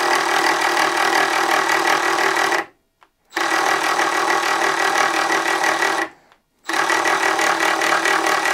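Milwaukee M12 Fuel Surge hydraulic impact driver running under load, driving a screw into wood. It runs steadily in three stretches of two to three seconds each, with two short stops between them. Its hydraulic drive is built for lower noise; it peaks at about 88.6 dB on a sound meter.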